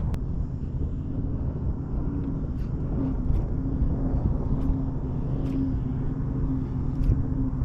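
An engine running steadily: a low rumble with an even hum, and a few faint ticks over it.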